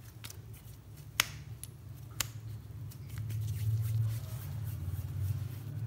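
Hands pinching off and rolling soft samosa dough into balls on a wooden tabletop: a few sharp little clicks and sticky snaps of fingers on the dough in the first couple of seconds, over a low steady hum.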